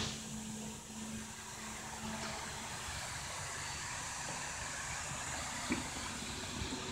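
Steady background noise with a faint hum that fades out in the first two seconds, and one small click near the end.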